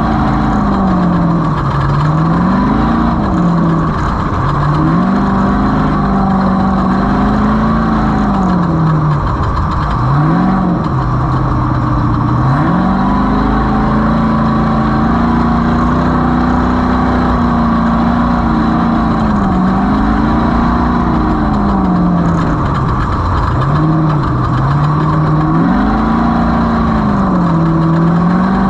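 Off-road race vehicle's engine running under load, its pitch climbing and falling again and again as the throttle is worked, dropping sharply about ten seconds in and again near the end before picking back up.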